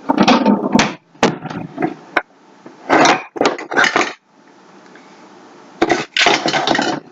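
Kitchen utensils clattering and knocking, in irregular bursts, as from rummaging through a cutlery drawer for a spoon.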